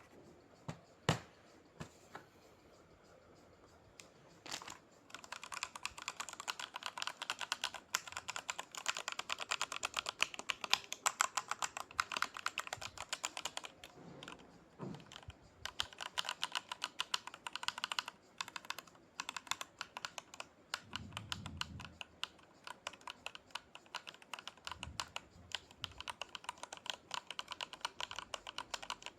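Keystrokes on an Amazon Basics Pro Series mechanical keyboard with red linear switches. A few single key clicks come first, then fast, dense typing starts about four seconds in and runs on with brief pauses.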